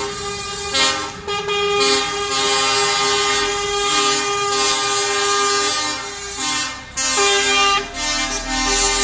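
Truck air horns blowing long, held multi-note blasts with a few short breaks, as the trucks approach and pass. A diesel truck engine rumbles low as one passes close near the end.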